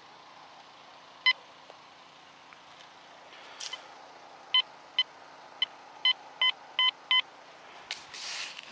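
Quest Q20 metal detector sounding its target tone as the coil passes over buried metal. There is one short beep about a second in, then a quick run of about eight beeps, a few of them held a little longer.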